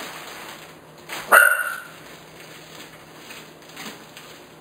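A single dog bark about a second in, short and sharp, over the crinkling rustle of a plastic mailer bag being pulled off a box.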